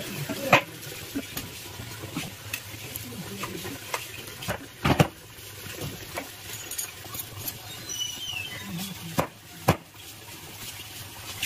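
A large knife chopping a fresh eel on a wooden log chopping block, giving a few sharp knocks. The loudest come about five seconds in, with two more close together near the end, and quieter handling noises of the eel and knife in between.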